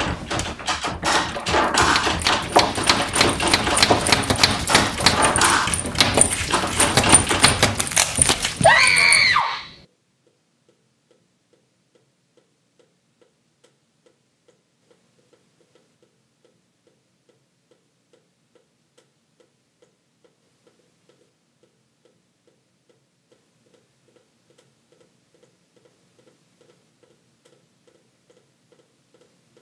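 A loud, chaotic clatter of knocks and bangs, ending in a short wavering high-pitched shriek, cuts off suddenly about nine seconds in. A clock then ticks faintly, the ticks coming closer together near the end.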